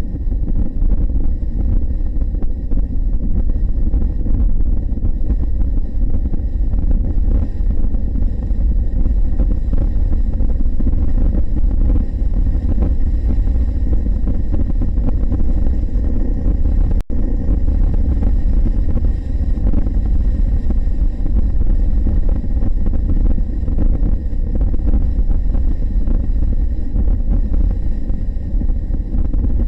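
Steady wind and road rush from a Honda NC750X motorcycle cruising at highway speed, heard from a camera mounted on the bike. The sound drops out for a moment about halfway through.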